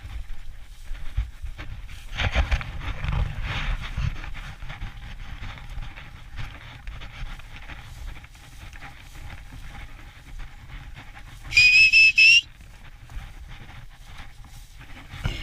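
A dog-training whistle blown once, a sharp piercing blast just under a second long, rising slightly in pitch, about three-quarters of the way in. Before it, swishing and footsteps through tall dry grass, loudest about two to four seconds in.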